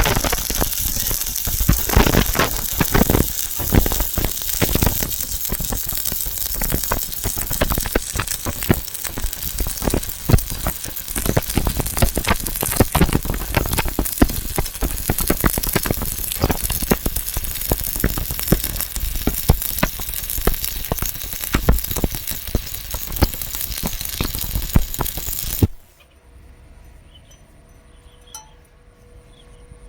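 Stick-welding arc crackling and sizzling steadily as a horizontal root pass is run, then cutting off abruptly near the end.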